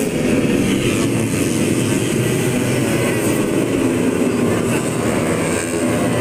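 A pack of 150cc four-stroke underbone race motorcycles racing together, many engines overlapping into one steady, loud sound.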